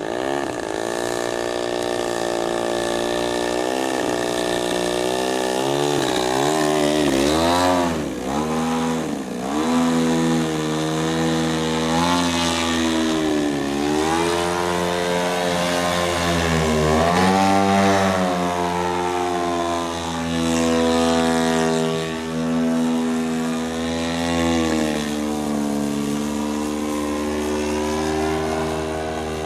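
Radio-controlled Yak aerobatic model airplane's engine and propeller running in flight. The pitch swoops up and down again and again as the plane throttles, manoeuvres and passes overhead, with the sharpest dips a few seconds in.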